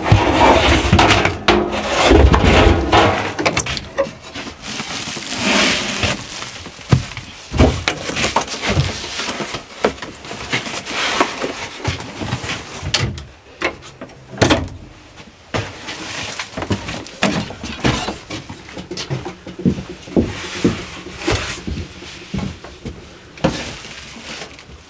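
Irregular knocks, clatters and cracks of hands-on work, some of them wooden-sounding, loudest in the first few seconds.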